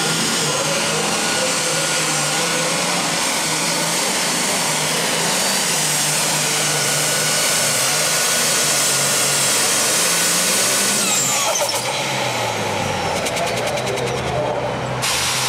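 An Allis-Chalmers heavy super stock pulling tractor's diesel engine runs flat out under load with a steady high whine. About eleven seconds in, the whine falls away as the engine backs off at the end of the pull. It then runs on at a lower, steadier pitch.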